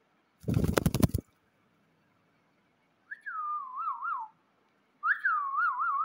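Two short whistled phrases about two seconds apart, each starting high, dropping, then wavering up and down twice. Before them, about half a second in, a loud burst of rattling noise lasts under a second.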